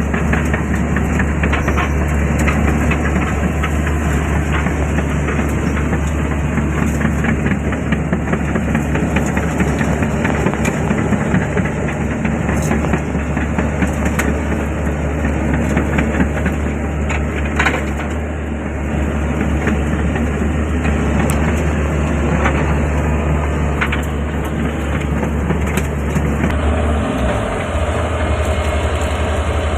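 Diesel engine of a heavy excavator running steadily, with many scattered cracks and clanks over it. About 27 seconds in the engine note drops and a steady mid-pitched hum joins.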